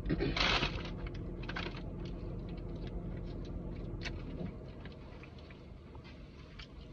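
Rustling and small clicks of condiment packets and food wrappers being handled, with two short rustles near the start, over a low steady hum that stops about four and a half seconds in.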